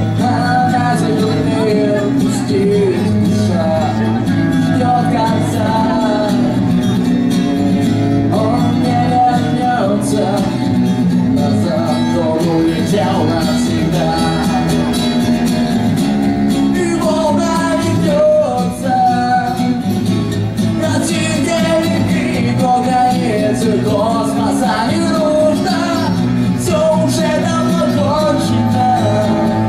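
Live indie-rock band playing a song, loud and continuous.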